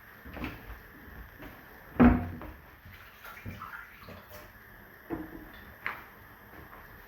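Kitchen work sounds: a few separate knocks and clunks of cookware and things being handled, the loudest about two seconds in with a short ring after it.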